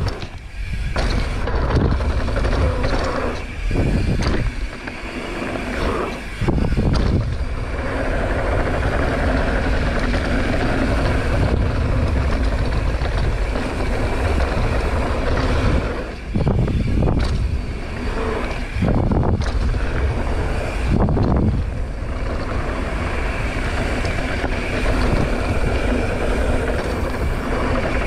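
Wind buffeting a GoPro microphone while mountain biking down a dirt jump trail, with the bike's tyres rolling on dirt: a loud, deep rush of noise that dips briefly several times.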